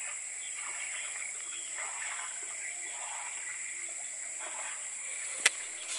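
Faint outdoor ambience with a steady high hiss, and one sharp click about five and a half seconds in.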